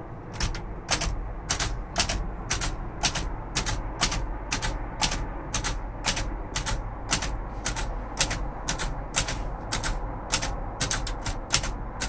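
1942 Royal Arrow portable manual typewriter being typed key by key. Each typebar strike is a sharp click, at a steady, unhurried pace of about two a second that quickens slightly near the end.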